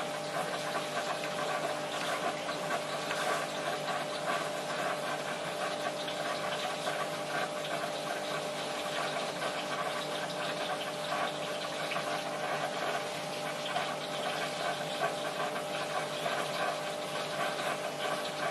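Marine sump aquarium running: a steady rush of circulating water with a constant pump hum underneath.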